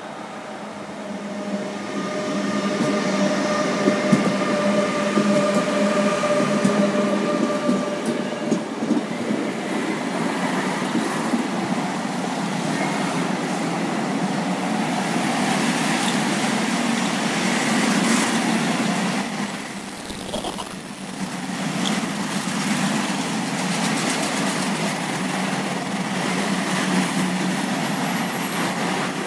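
Rolling-highway freight train, led by ÖBB class 1116 electric locomotives, passing close by, with a couple of steady tones over the first several seconds. After that comes the continuous rumble and rush of the low-floor wagons carrying lorries, dipping briefly about twenty seconds in.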